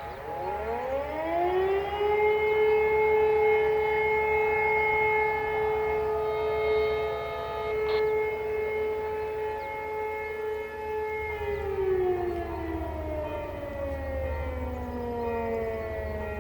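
E57 electromechanical siren spinning up to a steady tone, holding it for about nine seconds, then winding down and falling in pitch near the end. This is one of the long tones of the German Feueralarm signal, which calls out the volunteer fire brigade. A second, fainter siren sounds in the background.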